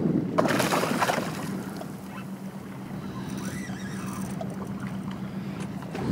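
A hooked bonito splashing at the surface on a fly line, a short spray of water about half a second in. Then water lapping, with a steady low hum underneath.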